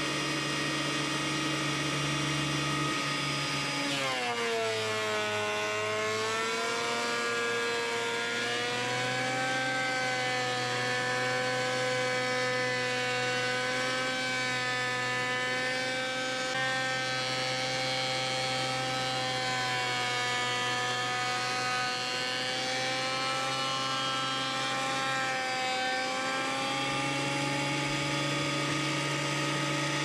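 Benchtop thickness planer running with a steady whine. About four seconds in, the motor pitch drops sharply as a board feeds in and the cutterhead takes the load; it stays lower while the board passes through, then rises back to free-running pitch near the end as the board comes out.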